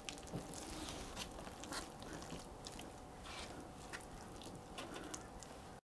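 Hand pressing and squishing wet Sculptamold-style modelling mix onto a board: faint, irregular wet squelches and small sticky clicks. It cuts off suddenly near the end.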